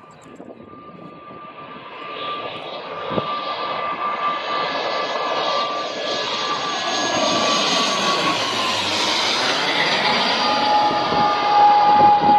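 Twin-turboprop airliner on landing approach, gear down, passing low overhead: an engine and propeller drone that grows steadily louder as it nears. A steady whine runs through it and gives way to a lower-pitched one near the end as the aircraft passes.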